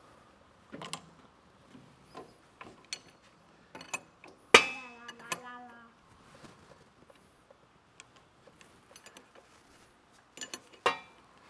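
Steel wrenches clinking and clanking on hydraulic line fittings while the lines are loosened: scattered sharp clicks, a loud clank about four and a half seconds in that rings briefly, and another sharp knock near the end.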